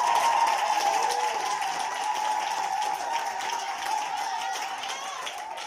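Congregation clapping and applauding, with a steady high tone held underneath; the clapping fades away near the end.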